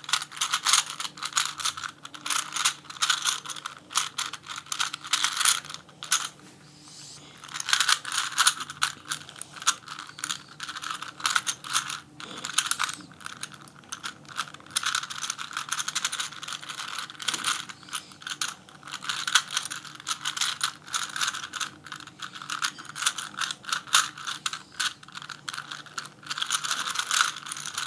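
Rubik's Cube being solved by hand: rapid plastic clicking and clacking as its loosened layers are turned, with a short pause a few seconds in. The cube is deliberately loose, which makes its turns especially clinky.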